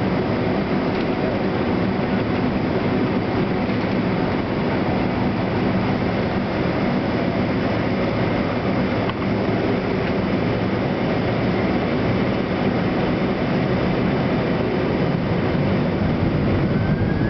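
Boeing 767-300ER's turbofan engines heard from inside the passenger cabin, running steadily at low thrust while the jet taxis onto the runway: a steady rumble with several humming tones. Near the end a thin whine begins to rise in pitch.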